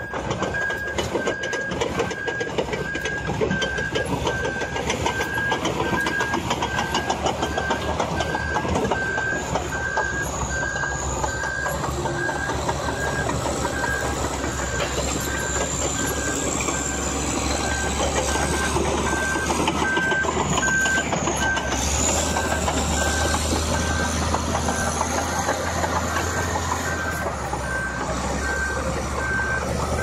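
Large crawler bulldozer running and moving on its tracks, with dense track clatter and engine rumble that grows louder in the second half, while a back-up alarm beeps steadily about once every three-quarters of a second.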